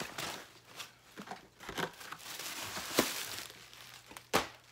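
Wig packaging crinkling and rustling as a long synthetic wig is pulled out of its pack, with irregular crackles and two sharper, louder crackles about three seconds in and near the end.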